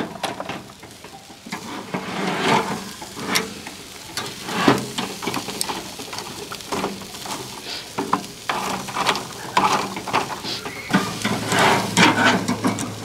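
Hot charcoal being shifted across a barbecue, giving irregular scrapes and clatters, over a steady sizzle of chicken cooking on the grill.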